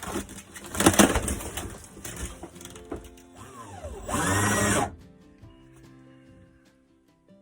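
A power drill's motor spins up, runs briefly and winds down about four seconds in, following a loud stretch of knocking and clatter from work on the wooden frame. Background music plays throughout.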